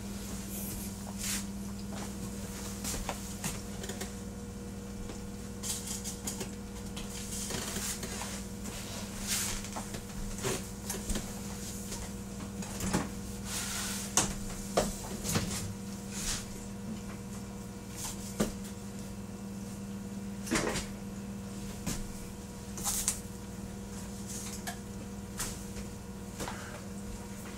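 Kitchen clatter: scattered clicks, knocks and light bumps of cupboards and utensils over a steady low hum.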